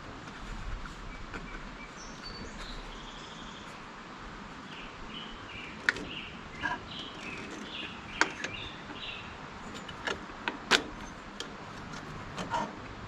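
Small birds chirping over steady background noise, with a few sharp clicks and knocks, loudest in the second half.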